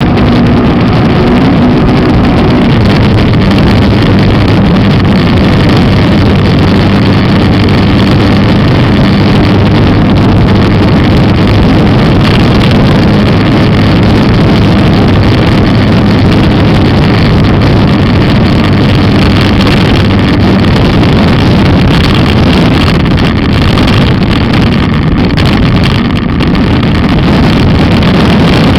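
Motomel Skua 250 motorcycle's single-cylinder engine running steadily under way, loud and close, with wind rushing over the microphone.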